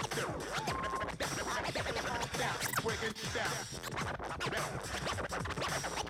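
Turntable scratching: a vinyl record pushed back and forth by hand on a DJ turntable, making many quick rising and falling sweeps over a hip-hop beat.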